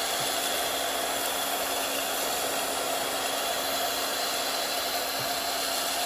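Honk mini cordless handheld vacuum cleaner running steadily while its brush nozzle sucks up ground flaxseed, a constant airy hiss with a faint steady hum underneath.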